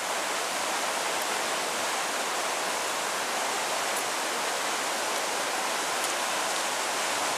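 Havasu Creek rushing steadily over low travertine ledges and small cascades.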